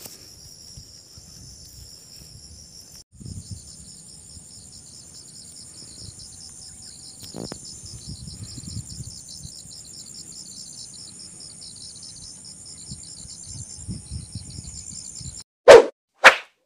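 Steady, high-pitched chorus of insects, with a brief break about three seconds in. Near the end, two short, loud hits in quick succession.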